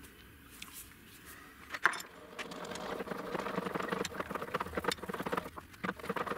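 Chuck key turning in a large 315 mm three-jaw lathe chuck to move its jaws. About two seconds in there is one sharp metal click, then a quick run of metallic clicks and rattles for about three seconds, with a few loose clinks near the end.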